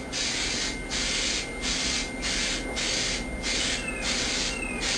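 Aerosol can of 3M Super 77 spray adhesive spraying in repeated hissing bursts of about half a second, with brief breaks between them.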